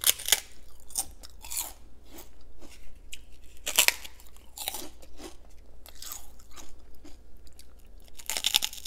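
Crunching and chewing of crisp homemade deep-fried prawn crackers, a run of sharp bites with the loudest crunches just after the start, near four seconds and near the end.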